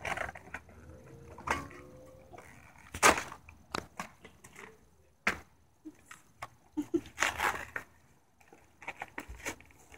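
Cardboard and plastic packaging being torn, crinkled and cut open by hand, in a string of sharp rips and rustles; the loudest rip comes about three seconds in.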